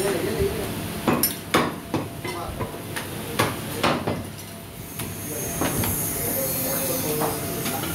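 A butcher's cleaver chopping mutton: several sharp chops at uneven intervals, loudest in the first half, over steady background noise.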